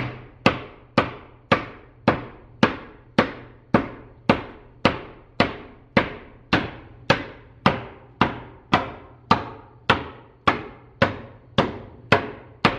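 Hammer blows striking steadily at about two a second, each one a sharp knock with a short ringing tail, while old plank wall boards are knocked loose.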